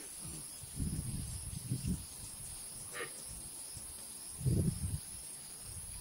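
Insects buzzing steadily at a high pitch, with soft low rumbles a few times, the strongest about four and a half seconds in.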